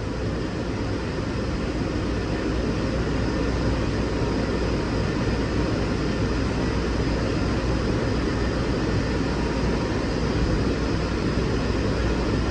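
Walt Disney World monorail heard from inside its cabin as it pulls away: a steady low running noise that grows a little louder over the first few seconds as the train gathers speed.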